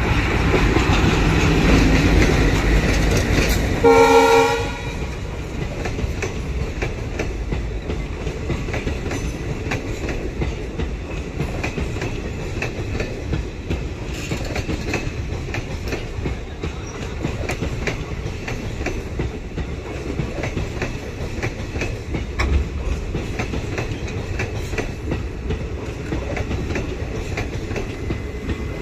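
ALCO-design WDM3A diesel locomotive passing close by with its engine running loud, then sounding one short horn blast about four seconds in. After that the passenger coaches roll past with a steady rumble and the clickety-clack of wheels over rail joints.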